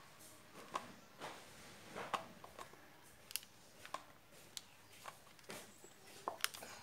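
Faint, scattered scratches and light taps of a pencil drawing on notebook paper, about ten short strokes.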